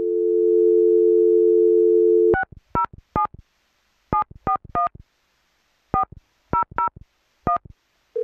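Telephone dial tone for about two seconds, then a ten-digit number keyed in as touch-tone (DTMF) beeps in groups of three, three and four.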